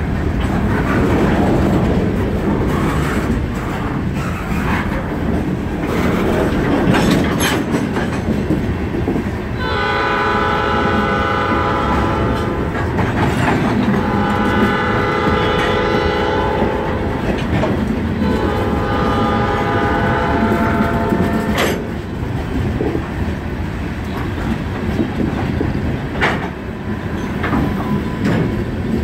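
Freight cars rolling past with a steady rumble and wheel clatter, with a few sharp clanks. About ten seconds in, a train horn sounds in three long blasts, the last one ending a little over twenty seconds in, just before a loud clank.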